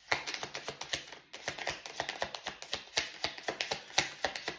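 A deck of tarot cards being shuffled by hand: a rapid, uneven run of card snaps and flicks, with a short pause about a second in.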